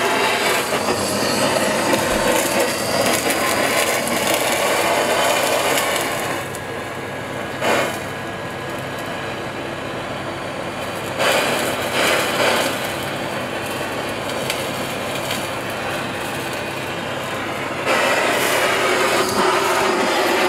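Handheld gas blowtorch flame hissing steadily as it browns the skin of a rolled duck galantine. The hiss is loud at first, drops for several seconds in the middle and comes back up near the end, with a single short knock about eight seconds in.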